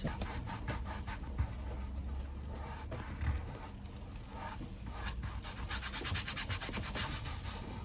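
Paintbrush rubbing back and forth on a canvas, a rapid run of short strokes that gets busier in the second half.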